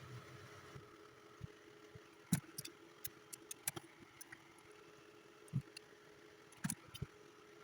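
Scattered light clicks and ticks of small tools and wire being handled during kit-amplifier wiring, irregular and a few at a time, over a faint steady hum.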